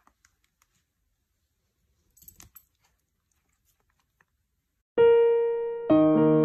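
Near silence with a few faint clicks, then piano music starts abruptly about five seconds in, with ringing, overlapping notes.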